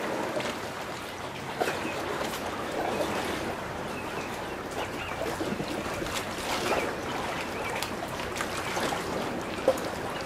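Choppy, wind-driven water lapping and splashing irregularly around a wooden rowing skiff in the shallows, with one short sharp knock near the end.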